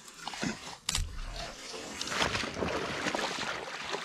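Irregular splashing and sloshing of shallow pond water as a Labrador retriever and then a person in waders wade through it, with a sharp knock about a second in.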